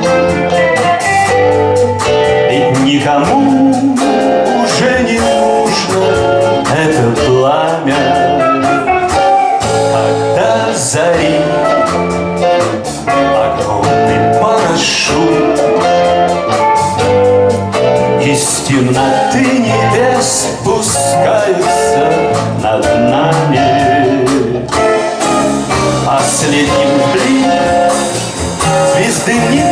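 Blues band playing live, an instrumental passage with guitar, bass guitar and drums keeping a steady beat.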